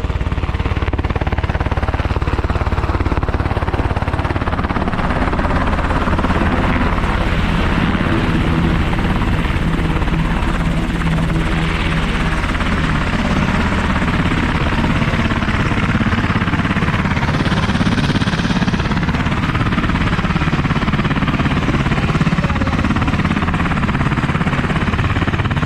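Large military helicopter running close by: a loud, steady rotor and engine din.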